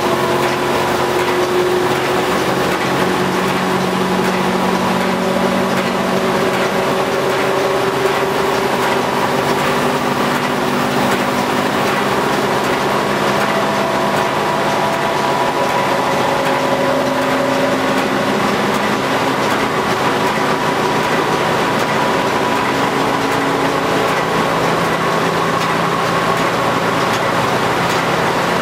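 1930s Osbyverken barrel-stave side planer running with its large disc turning, a loud steady mechanical noise from the machine and its belt drive. Several hums within it drift slowly up and down in pitch.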